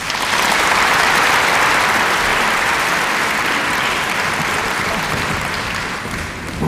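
Concert audience applauding, a steady mass of clapping that eases off slightly near the end.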